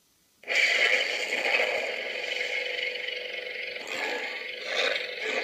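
Lightsaber sound card (Prizm V4, dual speakers) playing the blade ignition sound, which starts suddenly about half a second in, then the continuous blade hum, which swells and wavers toward the end as the hilt is moved.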